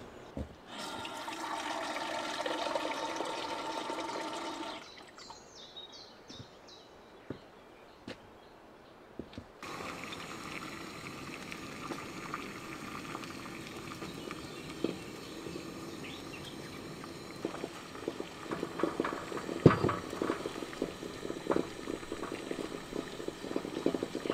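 Water pouring into a vessel for about four seconds. Later a steady hiss from a camping gas stove with a small pot of boiling egg, and in the last seven seconds the clinks and taps of a spoon, pot and bowl.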